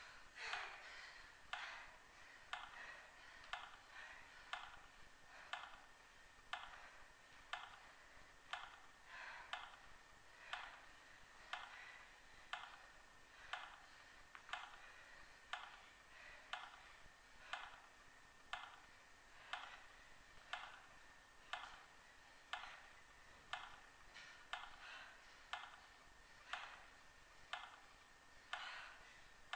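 Faint, steady clock-like ticking, about two ticks a second, over a faint steady hum.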